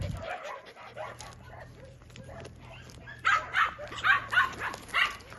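Puppy yipping: about six quick, high-pitched yaps over two seconds, starting about three seconds in, with fainter sounds in the first second.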